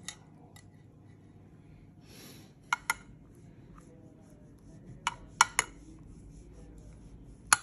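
A spoon clinking against a glass baking dish as sauce is spooned over rolled cannelloni. There are sharp clicks: two close together a little under three seconds in, three more around five seconds, and one near the end.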